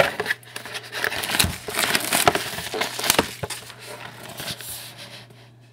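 Plastic wrapping of a pack of trading cards being torn open and crinkled, a dense crackle with sharp snaps that dies away over the last second or so.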